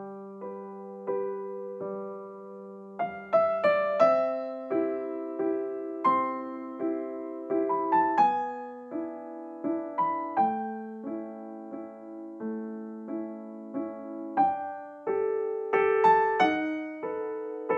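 Background piano music: a gentle melody of struck notes, each fading after it is played, over low held notes.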